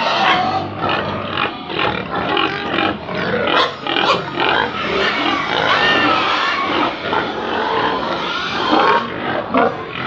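A pen of growing pigs calling, many short grunts and higher squeals overlapping without a break.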